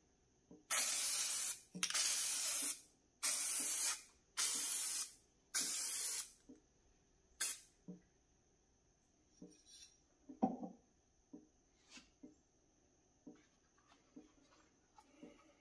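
Aerosol can of hydro-dipping activator sprayed over the floating print film to soften it for dipping: five hissing sprays of about a second each, then a short sixth burst. Faint light ticks and taps follow.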